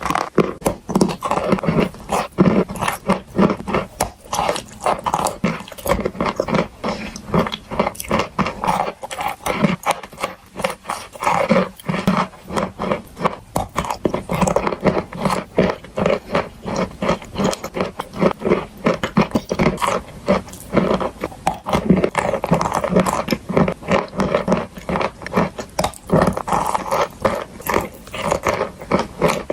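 Close-miked chewing and crunching of chalk and clay: a continuous run of short crunches, several a second, with mouth sounds between them.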